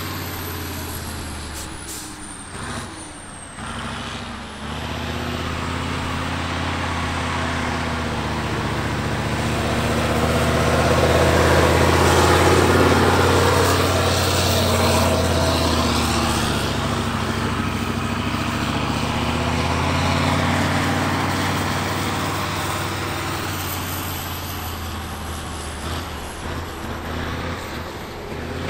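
Diesel engine of a 6x6 truck-trial truck working hard over rough ground, its note rising and falling with the throttle and dropping off briefly a few seconds in. It grows louder as the truck comes close, peaking about halfway, then fades as it pulls away.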